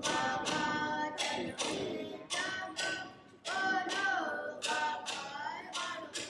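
A song: a voice singing over a steady beat of sharp percussive strikes, about two a second.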